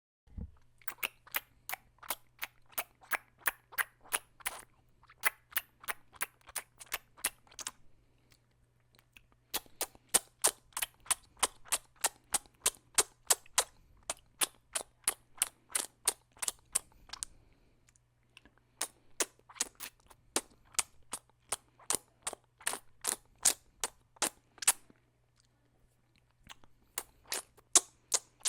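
Mouth sucking on a popsicle: quick wet smacks and pops of the lips, about three or four a second, in runs of several seconds with short pauses between.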